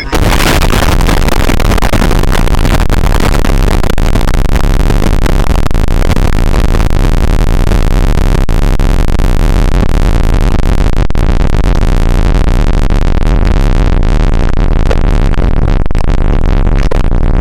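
Loud, heavily distorted electronic music, a dense wall of harsh noise at a constant level.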